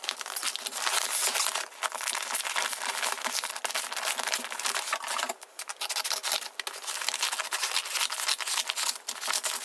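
Crinkling and rustling of a kraft-paper padded mailer (Jiffy Green bag) being pressed and turned over by hand, a dense crackle with a brief lull a little past halfway.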